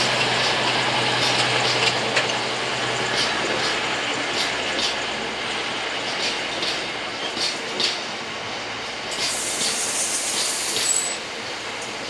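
Freight wagons rolling slowly past, their wheels clicking over rail joints at a regular beat, with the low drone of the departing Class 60 diesel locomotive fading out in the first half. A short hiss rises about nine seconds in and stops suddenly two seconds later.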